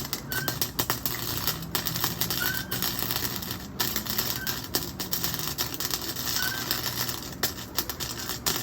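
Flux-core wire welder arc crackling and popping, a dense run of irregular sharp snaps as a weld is laid on tubing. The welder blames the spitty, sputtering sound on a wire feed speed set a bit too low.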